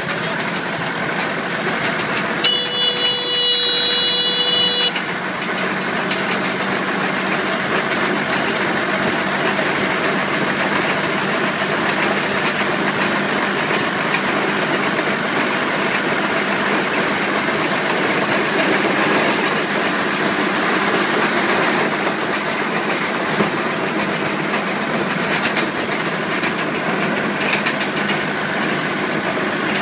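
Tractor-driven RHB0870 small round hay baler running steadily off the tractor's PTO shaft, with the tractor engine running. About two and a half seconds in, a loud high-pitched tone sounds for about two seconds.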